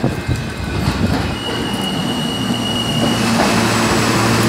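R160 subway train pulling into the station along the platform. Wheels knock on the rail early on, and a thin high wheel squeal lasts about a second and a half. From about three seconds in, the sound grows louder, with a steady low motor hum as the cars draw alongside.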